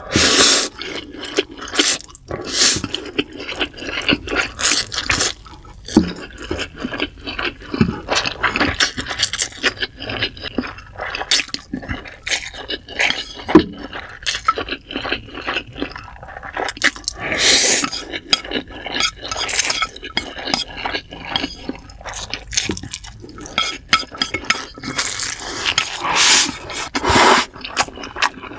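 Close-miked slurping and chewing of Indomie goreng instant fried noodles, in irregular wet bursts, with occasional scrapes of utensils against the dish.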